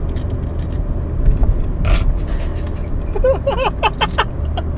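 Steady low road rumble inside a moving car's cabin, with a few light clicks and a short, broken burst of a person's voice about three seconds in.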